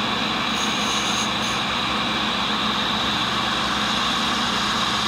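Tool and cutter grinder running steadily, its diamond cup wheel spinning while a tiny carbide cutter is held against it by hand to grind a small radius on the cutter's nose. A faint high whine sounds twice in the first second and a half.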